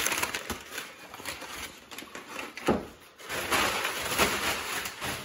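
Brown kraft packing paper being crumpled and rustled by hand, an irregular crackle with one sharper crunch a little past the middle.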